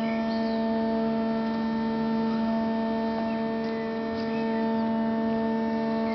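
Steady machine hum at one low pitch with several overtones, unchanging in level, with a few faint high chirps.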